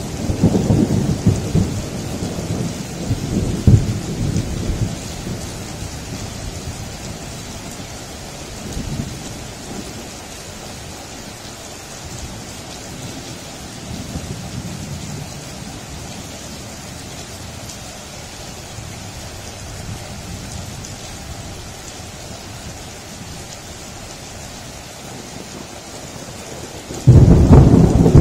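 Rain falling steadily in a thunderstorm. A rumble of thunder dies away over the first few seconds, and a sudden loud thunderclap breaks near the end.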